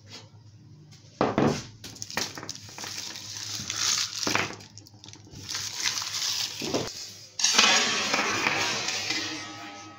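Wrapped hard candies and lollipops handled in a bunch: plastic wrappers crinkling and candies clicking together. About seven seconds in, the handful is dropped onto the tabletop and scatters with a sudden clatter and wrapper rustle that dies away over a couple of seconds.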